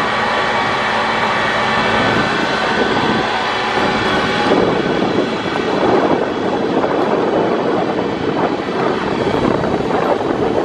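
Pier tram running along its track: a steady multi-tone motor whine over track rumble, which cuts off about four and a half seconds in, leaving a rough rushing noise.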